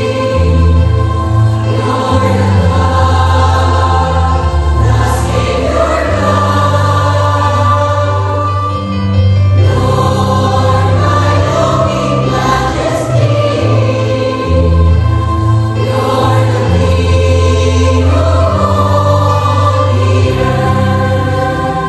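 Mixed choir of young men and women singing a gospel hymn in parts, over an accompaniment of long held bass notes that change every second or two.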